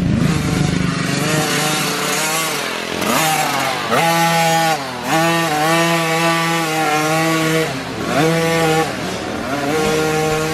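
Small dirt bike engine revving on a trail, its pitch climbing and dropping again and again as the throttle is opened and let off, with short dips in the note twice along the way.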